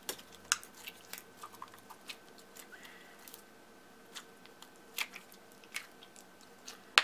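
Thick, putty-like clear purple slime being squeezed and stretched by hand, giving scattered sharp clicks and pops at irregular intervals, the loudest one near the end.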